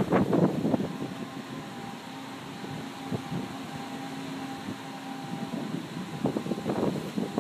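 Wind gusting against the microphone at the start and again near the end, with a faint steady hum in the quieter stretch between the gusts.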